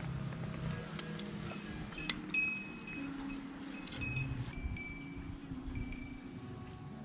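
Light, chime-like metallic tinkling with a few sharp clicks about two and four seconds in, each followed by a brief ringing tone.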